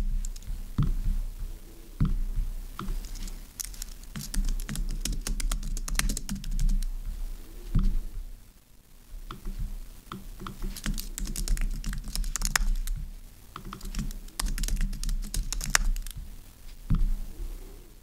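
Typing on a low-profile computer keyboard: keys clicking in quick runs, with a short lull about halfway through.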